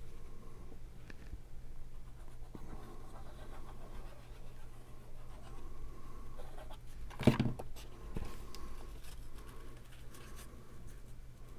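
Faint rustling and scratching of cardstock being handled while tacky glue is run from a needle-tip applicator bottle, over a steady low hum. About seven seconds in comes a single short knock, the loudest sound.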